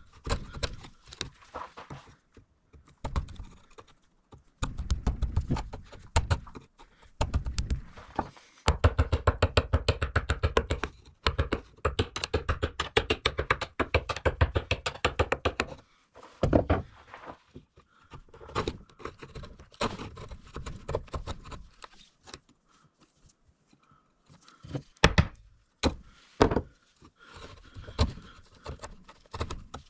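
Hammer tapping a chisel to chop out a groove in a wooden board, in quick runs of light blows several a second. About halfway through, the runs give way to fewer, separate strikes.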